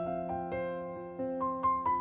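Background music: a gentle piano tune, single notes struck one after another, with a quicker run of notes in the second half.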